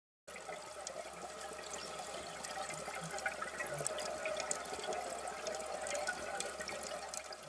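Underwater ambience: a steady rushing hiss with dense fine crackling, starting abruptly just after the beginning.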